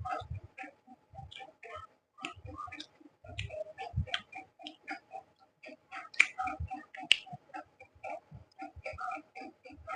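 Close-miked chewing of egg curry and rice, with a steady run of wet mouth smacks and clicks, several a second.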